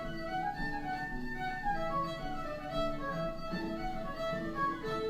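Solo fiddle playing an Acadian reel with microtonal notes, a recording played back through a computer's speakers.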